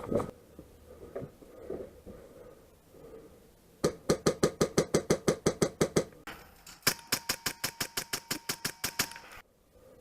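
Airsoft electric gun firing two full-auto bursts of rapid, evenly spaced shots, each about two and a half seconds long: the first about four seconds in, the second about seven seconds in, with a faint motor whine under the second.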